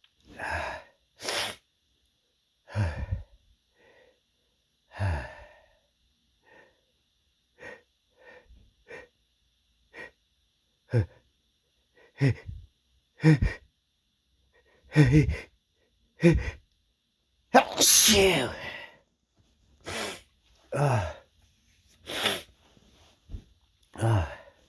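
A man sneezing over and over in a long fit: many short, sharp sneezes at uneven spacing, a second or two apart, with breaths between them.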